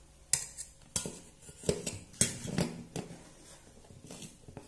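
Stainless steel bowls and plates clinking and knocking on a table as they are set down and moved, about six sharp knocks with a short metallic ring.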